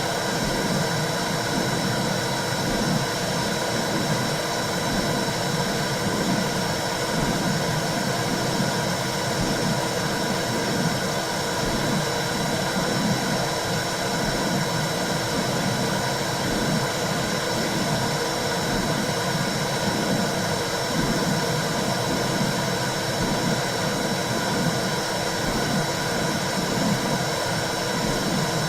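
Womb-sound white noise for soothing a newborn: a steady, rushing whoosh with an uneven low rumble and a faint high steady tone, holding an even level throughout.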